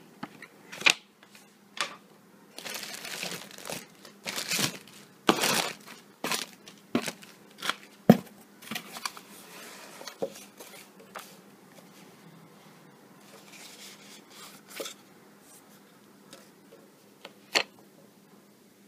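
Packaging handled and unwrapped by hand: crinkling and tearing in irregular bursts through the first ten seconds or so, with a few sharp clicks, the loudest about eight seconds in and another near the end.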